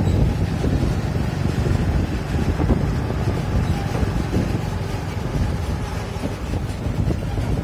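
Steady low rumble of vehicles on the move: engine and road noise following close behind a driving Ashok Leyland Ecomet Star truck, with wind buffeting the microphone.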